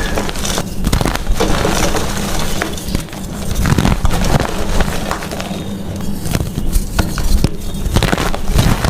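Gym chalk being crushed and crumbled, a continuous crunching made up of many small cracks and crackles.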